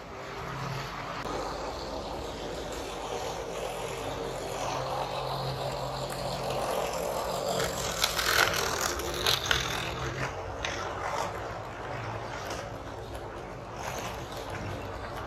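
HO-scale model WAP-7 electric locomotive and LHB coaches running past on the track: a steady motor whir and wheel rumble, with a cluster of sharp clicks about eight to ten seconds in as the locomotive passes closest.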